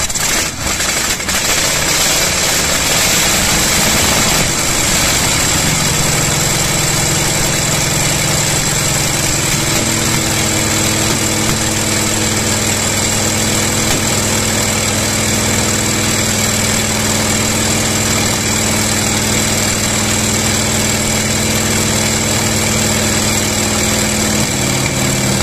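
Shvetsov ASh-62 nine-cylinder air-cooled radial aircraft engine running just after a cold start: uneven for the first second or two, then settling into a steady run.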